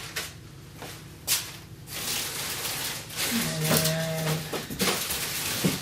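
Packaging being handled and rustled on a table, with a knock about a second in. Midway a low, steady hum-like tone lasts about a second.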